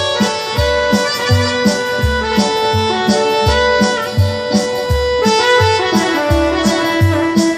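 Live band playing an instrumental interlude: a keyboard melody of held, reedy accordion-like notes over tabla and a steady low beat.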